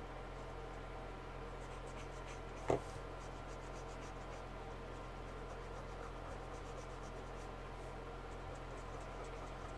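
Soft, repeated scratching of a felt marker being stroked back and forth over brown paper, over a steady low hum. A single sharp knock nearly three seconds in.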